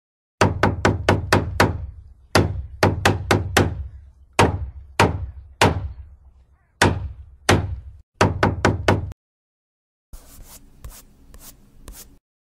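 Hammer blows driving nails into a wooden board, a sound effect: about twenty sharp knocks in quick runs of several, each ringing briefly. After a second's pause, softer paintbrush strokes across the board for about two seconds.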